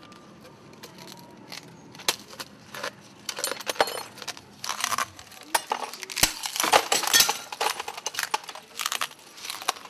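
Glass of a fluorescent tube cracking and crunching as a man bites off and chews pieces of it: sharp, irregular crunches and clinks, few at first and coming thick and fast from about three and a half seconds in.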